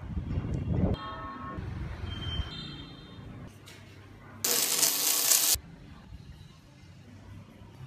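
Small hard parts being handled, tapping and clinking on a tabletop, with a short ringing clink about a second in. About a second of loud hiss starts and stops abruptly near the middle.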